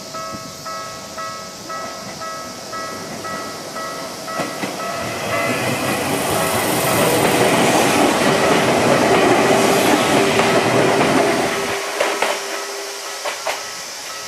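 Japanese level-crossing warning bells ringing in a quick repeating on-off pattern while a Tokyu 1000 series electric train passes. The train's wheel and rail noise builds, with clicks over the rail joints, is loudest in the middle and drops off sharply about twelve seconds in, while the bells keep ringing.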